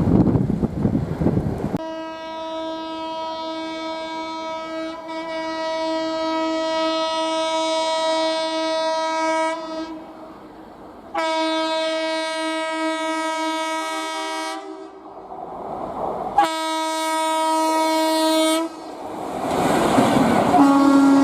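Electric locomotive horn, a WAP4 heading the Howrah–Puri Shatabdi, sounding three long steady blasts: the first about eight seconds, then two shorter ones. It is honking to warn gangmen working on the track ahead. The loud rush of a passing train comes before the blasts, and again near the end, when the horn sounds once more at a lower pitch.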